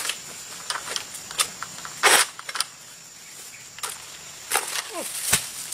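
An egrek's hooked sickle on its long metal pole cracking and knocking against oil palm frond bases as it is worked into the crown. The cracks are irregular, and the loudest is a short rasping crack about two seconds in.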